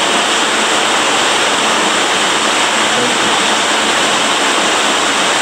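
Underground waterfall in a cave: water pouring and rushing loudly and steadily.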